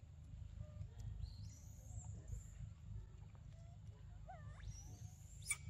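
Faint outdoor ambience: a steady low rumble like wind on the microphone, with scattered faint animal chirps and rising whistle-like calls, and a sharp click near the end.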